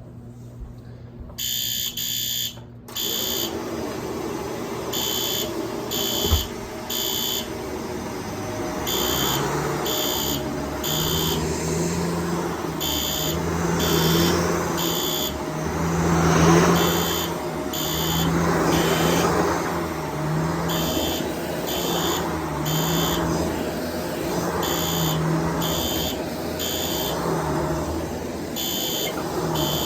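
A System Sensor SpectrAlert Advance P2R fire-alarm horn sounds the temporal code 3 evacuation pattern: groups of three short horn blasts about a second apart, with a pause after each group, repeating every four seconds, after one longer blast near the start. Under it a Shark DuoClean upright vacuum starts about three seconds in. Its running noise swells and fades as it is pushed back and forth, with a single thump about six seconds in.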